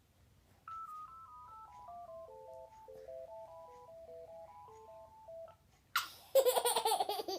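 Mobile phone ringtone: a simple electronic melody of single pure notes, starting high and stepping down, lasting about five seconds. About half a second after it stops, a young child bursts into loud laughter.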